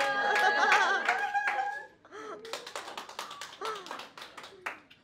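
A small group of people letting out long, high cheering cries, one voice warbling, for about the first two seconds, then laughter and scattered claps and taps.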